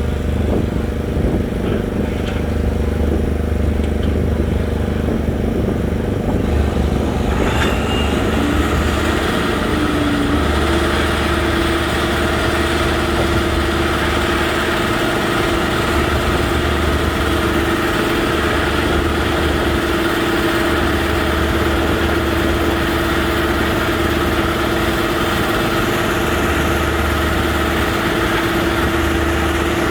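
Heavy machine engine running steadily, with a steady higher whine joining about eight seconds in.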